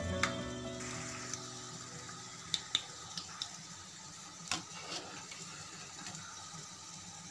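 Poha and potato fingers deep-frying in hot oil with a steady sizzle, while a wire spider strainer clicks and scrapes against the steel pan several times around the middle as the fingers are lifted out. Background music fades out in the first second.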